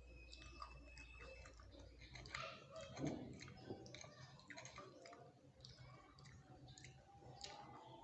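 Chewing a mouthful of nachos, tortilla chips crunching with soft, scattered mouth clicks and one louder crunch about three seconds in.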